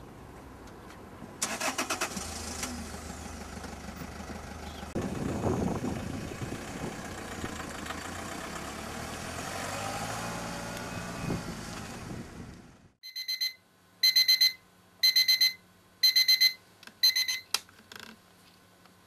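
A small hatchback's engine is started, runs and pulls away, rising in pitch as it accelerates, then cuts off suddenly. An alarm clock then beeps in five short bursts about a second apart and stops as it is switched off.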